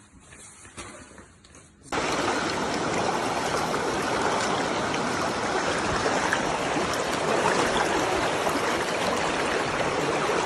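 Steady rush of running water that starts abruptly about two seconds in, after a faint opening.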